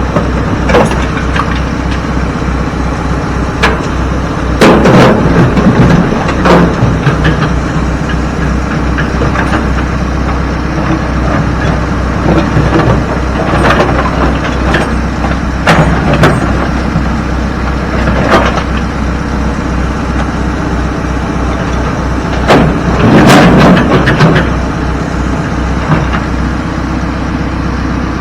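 A diesel engine running steadily, with repeated heavy clunks and clattering as rocks are dropped into the steel bed of a dump truck being loaded.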